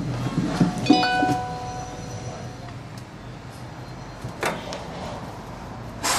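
Small tools being handled on a workbench: a few clicks and knocks, with a short ringing metallic tone about a second in that fades within two seconds, and more clicks near the end.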